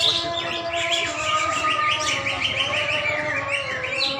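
Caged green leafbirds (cucak ijo) singing, several at once: fast, dense runs of chirping notes.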